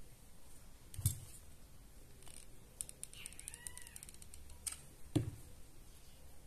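Hot glue gun being handled: a dull knock as it is picked up, a quick run of clicks from its trigger while gluing twine to a glass jar, and another knock as it is set down. A brief pitched squeak sounds in the middle of the clicking.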